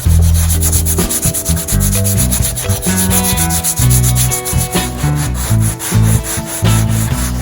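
Sandpaper rubbing on the homemade slingshot rifle in quick, even back-and-forth strokes, several a second.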